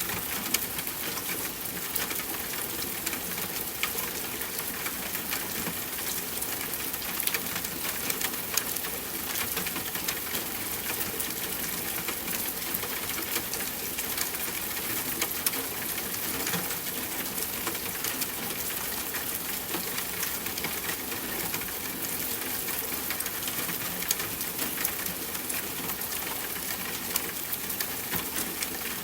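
Steady rain falling, a constant hiss dotted with frequent sharp ticks of drops striking surfaces.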